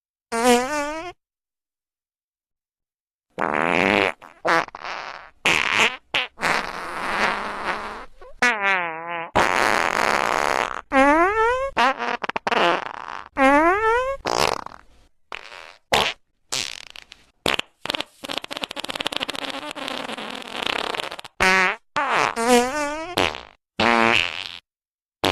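A long string of fart sounds, one after another. After a single short one and a silent gap of about two seconds, they come in quick succession: some are pitched and glide up or down, others are airy, hissing blasts.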